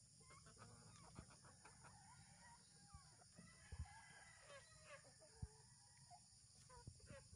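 Faint clucking and short calls from a flock of free-range chickens, Rhode Island Reds among them, feeding together, with a few sharp clicks between the calls.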